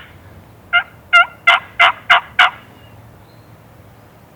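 Wild turkey calling: a run of six loud, short, sharp yelps about a third of a second apart, starting nearly a second in, one with a brief rattle.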